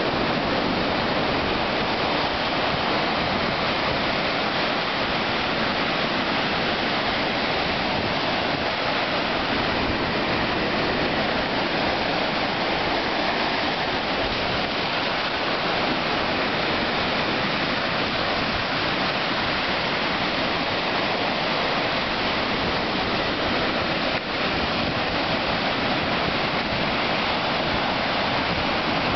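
Small waves breaking and washing up a sandy beach: a steady, even rush of surf.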